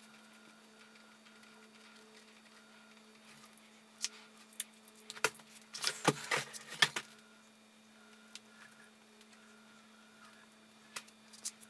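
Faint room tone with a steady low hum, broken by a few scattered clicks and scuffs of handling in the middle and again near the end.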